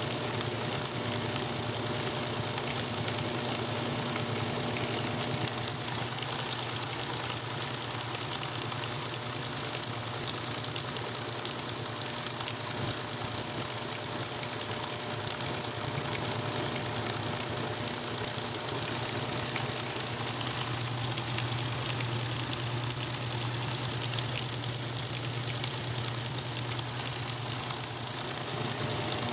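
Electrolux Top 8 top-loading washing machine running steadily during its rinse cycle: a constant motor hum over water noise, with the low hum growing a little stronger about two-thirds of the way through.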